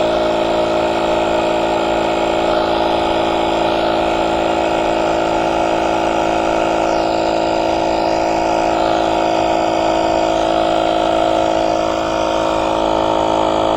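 Battery-powered portable tire inflator running steadily, its small motor-driven compressor pumping air into an electric bike tire.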